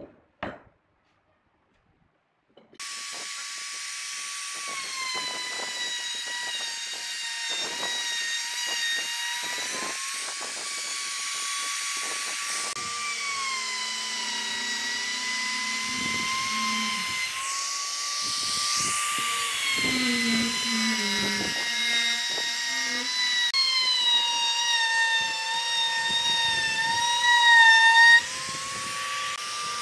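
Handheld trim router running at high speed as it cuts along the edge of a wooden cutting board: a steady, high motor whine whose pitch dips and recovers again and again as the bit takes and eases off the load. It begins abruptly about three seconds in, after near silence with a couple of light knocks.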